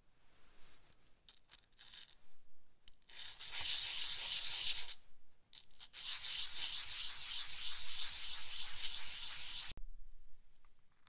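A small copper ring cut from tube, rubbed back and forth by hand on an abrasive sheet laid on a flat plate: a scratchy sanding sound. It comes in two spells, about two seconds and then about four seconds, with a short pause between, and cuts off suddenly near the end.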